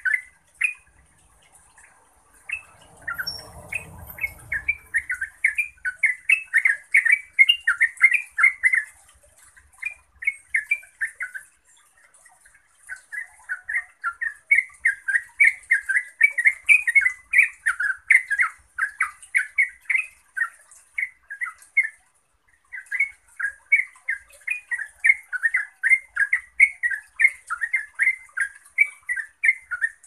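Yellow-vented bulbul singing its long, rapid song (ropel): long runs of quick chattering notes, breaking off briefly about 12 and 22 seconds in.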